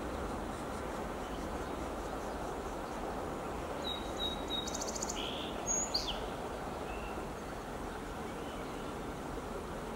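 Steady low rushing background noise outdoors, with a few short, high bird calls between about four and six seconds in: three brief whistled notes, a quick buzzy rattle, then a falling note.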